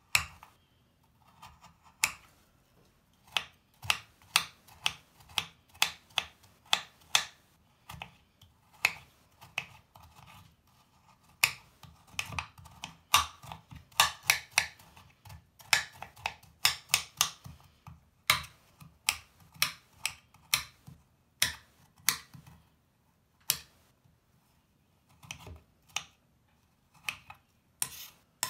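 Kitchen knife chopping a dry, crumbly bubble bar into small pieces, the blade knocking through it onto the cutting board in sharp, irregular chops, quicker in runs around the middle.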